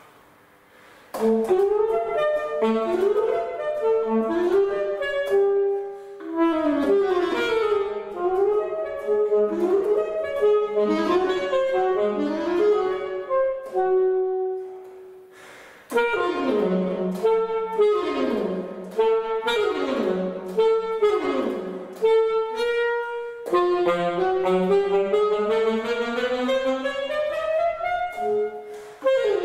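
Unaccompanied alto saxophone playing fast running passages of quick notes, with short rests about a second in, around the middle and near the end.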